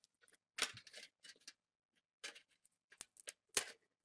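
Crinkling and clicking of a thin plastic-and-foil shield being peeled back by hand from a laptop LCD panel, in a few short, irregular crackles.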